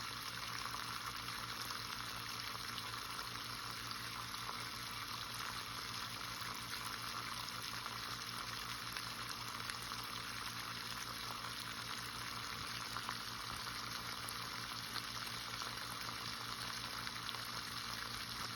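Water draining steadily out of a 20-year-old water heater through its drain hose during a flush, a constant splashing hiss as the sediment-laden water runs out.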